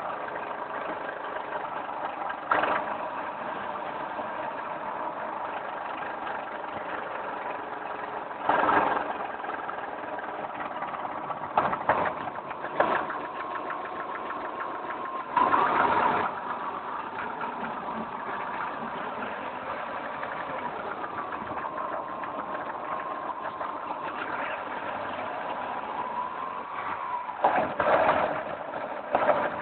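VW Mk4 Golf running with a steady engine hum whose pitch slowly rises and falls, broken by several short, loud knocks or clunks a few seconds apart, with a cluster of them near the end.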